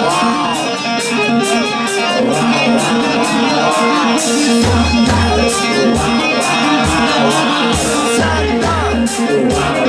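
Rock music: an electric guitar plays a lead with bent, wavering notes over a steady drum beat with cymbal hits, and a bass line comes in about halfway through.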